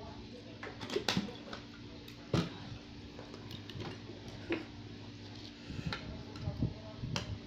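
Scattered light clicks and clinks of metal eating utensils against a glass bowl and plate during a meal, with the loudest about two and a half seconds in, over a steady low hum.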